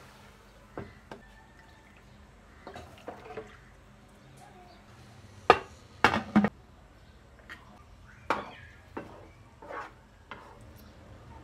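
Scattered clinks and knocks of metal cookware: a spoon against a steel pressure cooker pot, with a cluster of loud clanks about halfway through as the pressure cooker lid is fitted and closed.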